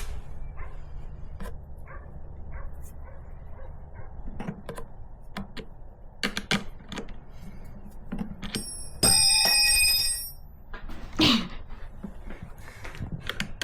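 Scattered clicks and knocks of hand work on a toolbox hinge's threaded rod and nuts. About nine seconds in comes a loud, bright ringing tone lasting about a second, and about eleven seconds in a short loud call with a falling pitch.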